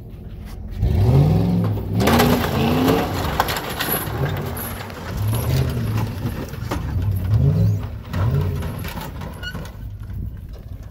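Car engine revved hard about six times, each rev rising and falling, while the vehicle strains to pull the wrecked pickup apart by chain; a rushing hiss of spinning tires runs from about two seconds in until near the end.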